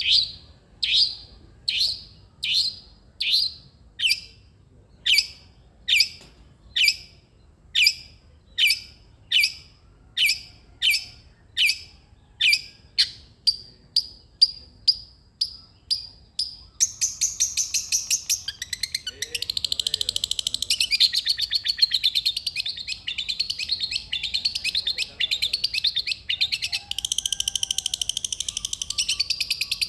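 Long-tailed shrike (cendet) calling: a string of short, sharp notes about one a second that quicken somewhat toward the middle. It then breaks into a fast, continuous chattering song.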